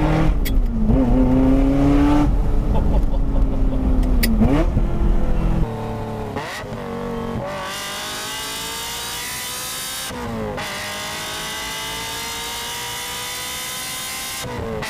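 Ferrari F355's V8 through a straight-pipe exhaust with its valves open, accelerating hard through the gears: the pitch climbs, drops briefly at each gear change and climbs again. About halfway through the sound turns suddenly quieter and thinner, and then rises in two long sweeps.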